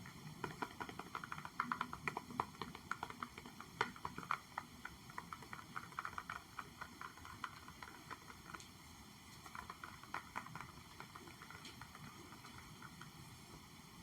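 Light, quick tapping on objects for ASMR, in rapid clusters: busiest over the first few seconds and again around ten seconds in, with sparser taps in between.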